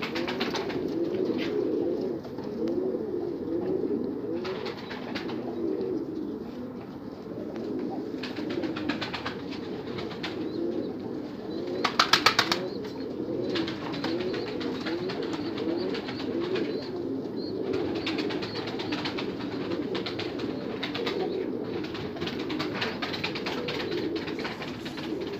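A flock of Iraqi blue (Azrak) domestic pigeons cooing, many overlapping calls in a loft, with scattered clicks and a short run of rapid clicks about halfway through.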